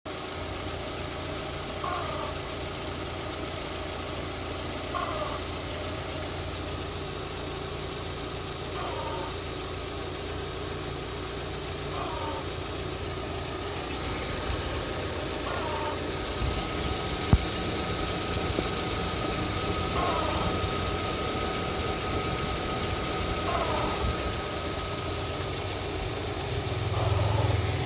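Audi A4 B5 1.8-litre four-cylinder engine idling steadily, with a short chirp that falls in pitch and comes back about every three to four seconds. This is the weird sound the owner hears from the engine; its cause is not identified.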